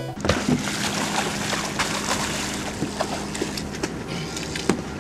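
Water splashing and sloshing beside a boat's hull over a steady hum from the boat's machinery, with scattered sharp knocks and clicks.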